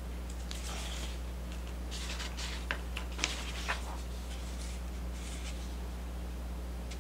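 Computer mouse clicking a few times and sliding on the desk, over a steady low electrical hum from the recording setup.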